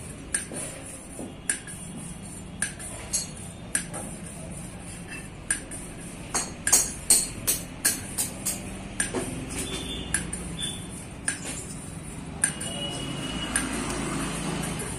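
Motorcycle engine valve being hand-lapped into its seat in the cylinder head: irregular sharp metallic taps and clinks of the valve against the seat, with a quicker run of them in the middle.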